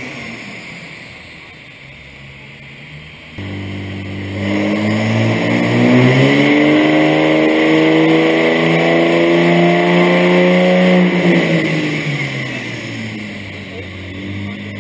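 Diesel pickup truck making a dyno pull on a chassis dynamometer. The engine note climbs steadily under load for about seven seconds, then falls away as the throttle comes off. Before that a quieter engine winds down.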